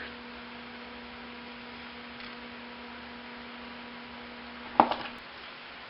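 Steady electrical hum over a low hiss, with a single sharp click or knock about five seconds in.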